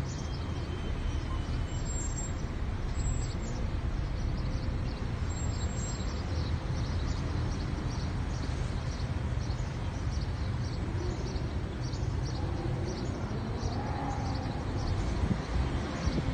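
Steady low rumble of a slowly moving car, heard from inside, with many faint short high-pitched chirps scattered through it.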